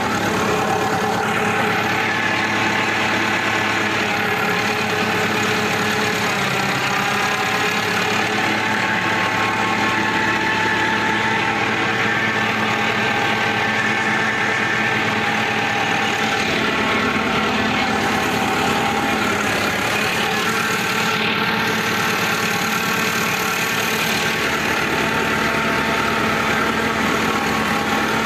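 Preet 6049 tractor's diesel engine running steadily under load, heard from the driver's seat, while it pulls a 13-tine cultivator through the soil.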